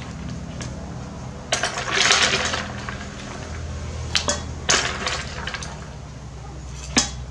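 A metal spoon scraping and clinking against ice cubes as they are scooped from an insulated cooler and dropped into a steel bowl of cut melon. The longest clatter comes about two seconds in, with sharper clinks around four to five seconds and again near the end.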